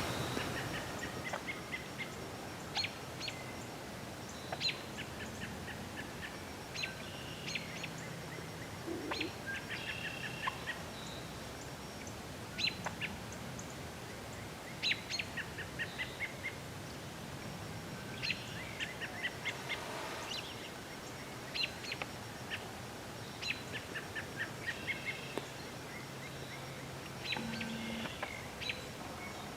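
Songbirds singing and calling, short high trilled phrases every second or two over a faint steady background.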